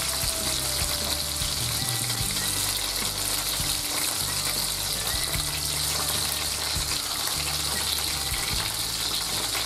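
Flour-dusted pork chunks frying in foaming butter in a frying pan on medium heat: a steady sizzle.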